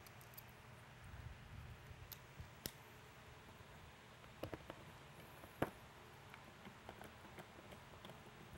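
Faint, scattered clicks and ticks of a screwdriver backing small screws out of a Whelen L32 LED beacon's metal reflector assembly, with a sharper click a little past halfway.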